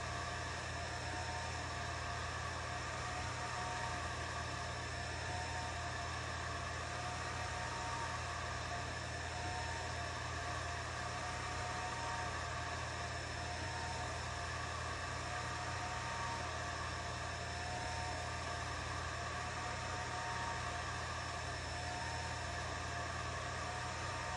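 Atomstack A10 Pro laser engraver running: a steady fan hum with the whine of the stepper motors as the laser head sweeps back and forth across the work, the whine repeating about every two seconds.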